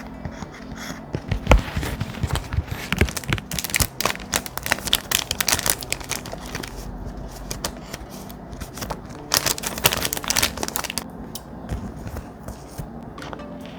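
Thick paper being handled close up: irregular rustling and crinkling with scratchy, tearing sounds, busiest near the middle and again about two-thirds of the way in.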